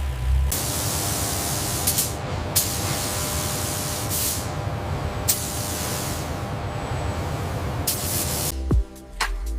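A loud, steady spraying hiss with a few brief sharper surges, as from a factory spray or compressed-air line. Near the end it cuts off suddenly and low electronic beats take over.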